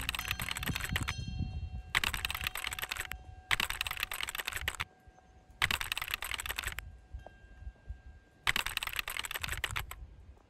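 Bursts of rapid computer-keyboard typing, each about a second long, five times with short gaps, over a faint steady ringing tone.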